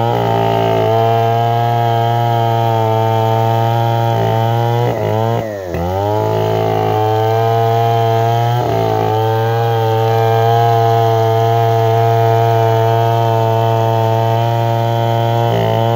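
Stihl 070 two-stroke chainsaw running at steady high revs while sawing through an acacia log. About five seconds in, the engine speed drops sharply and climbs back within about a second.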